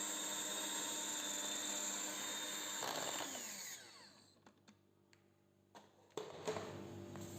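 Electric hand mixer running steadily in a semolina and sugar mixture, switched off about three seconds in, its motor whirring down in pitch. A few light knocks and clatter follow near the end.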